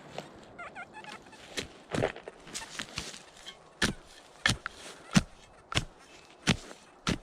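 Footsteps walking at an even pace, about one and a half steps a second, after a few seconds of scattered rustling and knocks.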